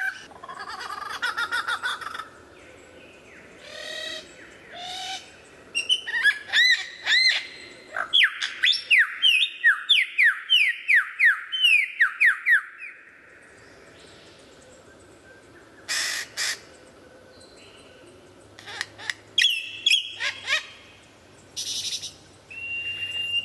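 Superb lyrebird singing a varied song of whistles, sweeps and clicking notes. About eight seconds in comes a fast run of falling whistles, around three a second, lasting some five seconds. Later come scattered clicks and short calls, and near the end a held steady whistle.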